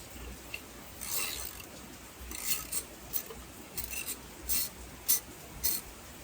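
Socket wrench with a half-inch deep wall socket working the Harley-Davidson horn's mounting nut loose, in a series of short, irregular bursts of clicking and scraping.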